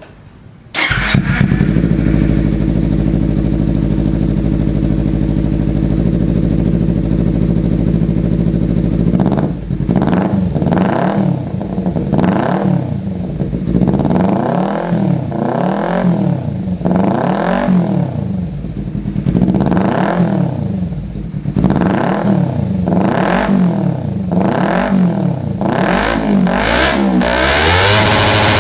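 Kawasaki Z250/Ninja 250 motorcycle engine running through an aftermarket SC slip-on exhaust with an oval titanium-carbon muffler. It comes in abruptly about a second in and holds a steady idle. From about ten seconds in it is revved in a long series of quick throttle blips, each rising and falling back, about one every second and a half.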